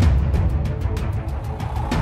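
Background music with a steady, driving beat and heavy bass.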